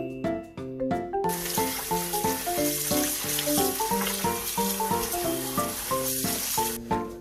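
Light background music with a plucked melody. About a second in, a loud, even hiss starts over it and cuts off suddenly near the end.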